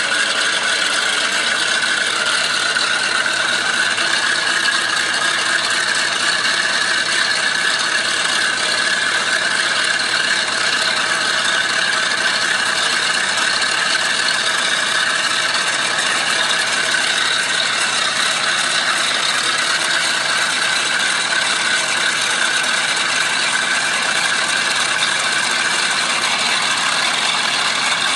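Boeing B-29 Superfortress's four Wright R-3350 radial engines running loud and steady as the bomber taxis.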